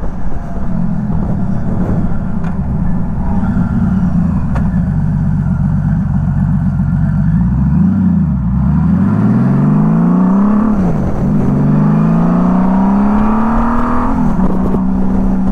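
Honda Valkyrie F6C's liquid-cooled 1500cc flat-six engine running under way, heard from the rider's seat. About eight seconds in the revs drop and pick up again twice, then the pitch climbs steadily for about five seconds as the bike accelerates, dips briefly near the end and holds steady.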